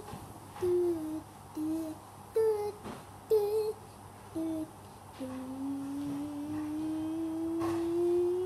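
A person humming: about five short notes, then from about five seconds in one long hum that rises slowly in pitch.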